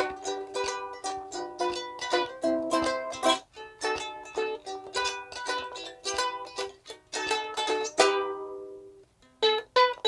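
Chords strummed in a steady rhythm on a 3D-printed travel ukulele with nylon-type uke strings. About eight seconds in, one strum is left to ring out and there is a brief pause before a few more strums. The player admits the instrument had drifted out of tune by this point in the tune.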